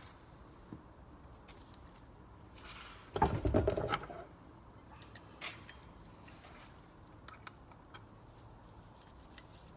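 Scattered light clicks and knocks of a hand tool and small metal and plastic parts as a locking nut is tightened on a kids' tricycle's back-wheel bolt, with one louder rattle lasting about a second, starting about three seconds in.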